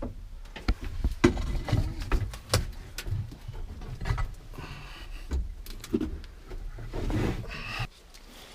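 Scattered knocks, clicks and clatter of hands and parts being handled during work on the motorhome's chassis, with a faint muffled sound now and then. It quietens near the end.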